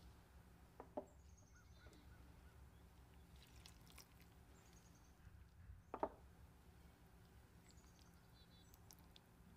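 Near silence: a faint steady room hum with two soft knocks, one about a second in and a slightly louder one about six seconds in, and a few faint high chirps.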